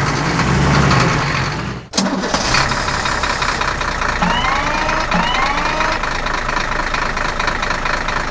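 Vehicle engine sound effect starting and running steadily, with a short break about two seconds in and two short rising squeaks a second apart near the middle.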